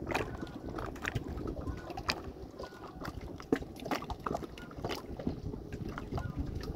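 Water splashing and sloshing around a small boat, with scattered light knocks and clicks over a steady low rumble.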